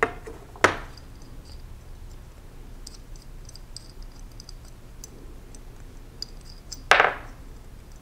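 Metal clicks and knocks as the lock bolt is worked out of a combination square's head to be turned around: two sharp clicks in the first second, faint light ticks in between, and a louder clunk about seven seconds in.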